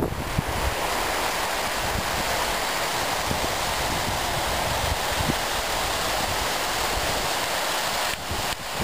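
Rocky hill stream rushing over stones: a steady, even hiss of running water that dips briefly near the end.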